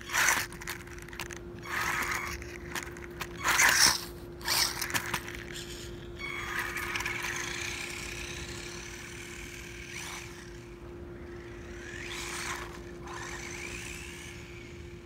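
Small HBX Ratchet 1/18-scale RC buggy's electric motor and tyres in loud, short bursts as it is driven hard close by. After about six seconds it becomes a steadier motor whine that fades as the buggy drives away.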